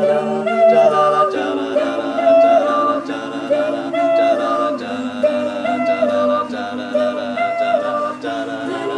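An a cappella group singing a wordless interlude in close, layered harmony, with a repeating melodic figure on top over a sung bass line that steps to a new note every second or two. Light vocal-percussion ticks keep time underneath.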